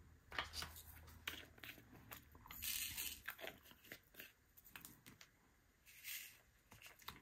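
Faint, irregular taps and small crunches of a diamond-painting pen picking up resin drills and pressing them onto the sticky canvas, with two brief crinkling rustles, one near the middle and one near the end.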